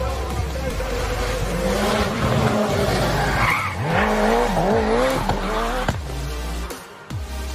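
Race car engine revving hard, its pitch rising and falling again and again as the throttle is worked through a hairpin, with tyres squealing as the car slides. The sound drops away near the end as the car drives off.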